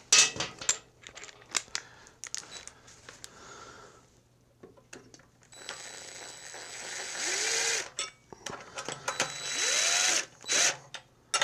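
Hand tools working on a small engine's air cleaner plate fasteners: scattered metallic clicks and knocks, then two stretches of rapid mechanical clicking, typical of a ratchet being worked back and forth.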